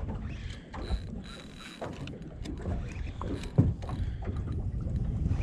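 Fishing reel clicking as line is wound in against a hooked fish, over a steady wash of sea and wind on the boat. One louder knock comes a little past halfway.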